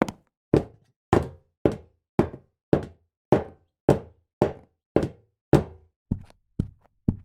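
High-heeled shoes walking on a hard floor: a steady series of about fourteen sharp heel strikes, a little under two a second, each knocking with a short ringing tail. Near the end the steps come slightly quicker and lighter.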